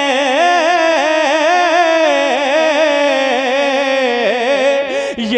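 A man singing a naat unaccompanied into a microphone, holding the drawn-out last syllable of a line as one long, wavering, ornamented note that breaks off near the end.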